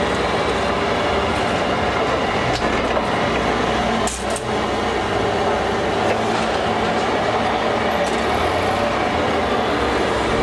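Toyota forklift engine running steadily, with a brief knock about four seconds in.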